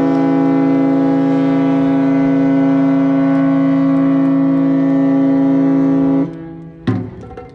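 Cruise ship's horn sounding one long, steady blast, a deep tone rich in overtones, that cuts off about six seconds in. Near the end, taiko drum strikes begin.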